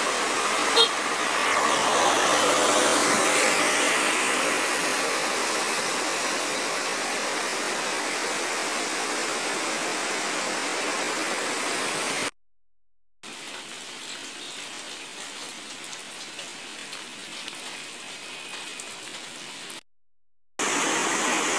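Steady rushing water noise, much quieter after a short silent break about twelve seconds in, with a second brief silence near the end.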